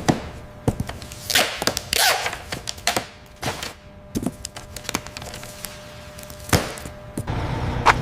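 Irregular knocks, thuds and short scrapes of hard objects being handled, with a sharp knock about six and a half seconds in. Near the end a steady low machine hum starts up.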